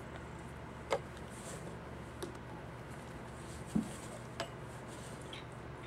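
A few small sharp clicks and one duller tap, spread over several seconds, above a steady low background hum.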